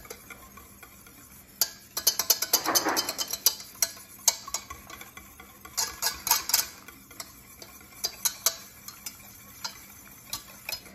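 Wire whisk beating egg yolks by hand in a stainless steel saucepan, its wires clicking and scraping rapidly against the metal pan. The clicks come in quick runs, busiest about two seconds in and again around six seconds. The yolks are being whisked as oil is added a drop at a time to emulsify mayonnaise.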